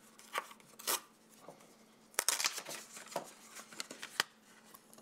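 Small cardboard accessory box being handled and opened by hand: scattered scrapes and sharp clicks of the card flaps and lid, busiest a little after two seconds in, over a faint steady hum.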